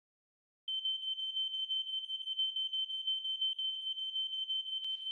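Smoke alarm sounding: a steady, high-pitched electronic tone that starts abruptly after a moment of silence and holds with a rapid flutter. A single click sounds near the end.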